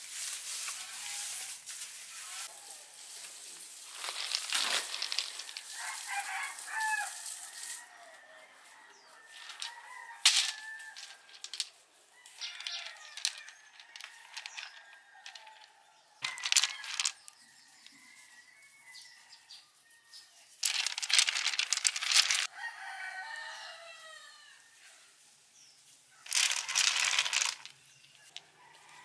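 A rooster crowing repeatedly, with chickens clucking, between short, louder bursts of scraping and rustling from hands working wet sand and stones.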